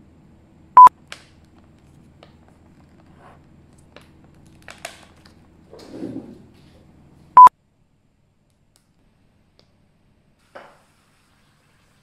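Two short, very loud beeps of one steady pitch, a bleep tone, about six and a half seconds apart, with faint clicks and a soft muffled bump between them. After the second beep the sound cuts to silence, apart from one soft knock near the end.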